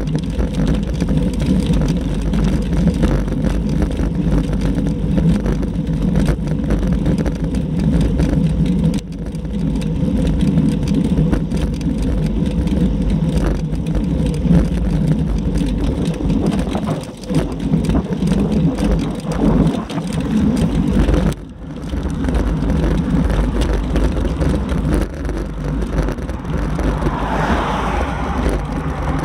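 Wind rushing over a bicycle-mounted action camera's microphone, mixed with tyre noise on the road while riding. The noise is loud and steady, dipping briefly twice.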